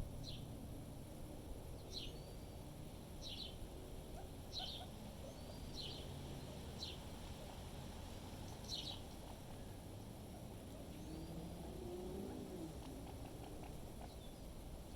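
A small songbird chirping: seven short, sharp, high chirps about one to one and a half seconds apart, stopping about nine seconds in, over a steady low rumble of wind.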